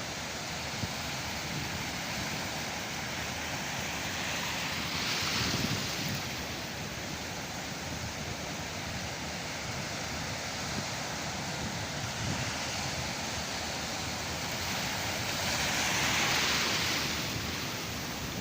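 Sea surf washing on the shore as a steady rush, with two louder surges of breaking waves, about five seconds in and near the end.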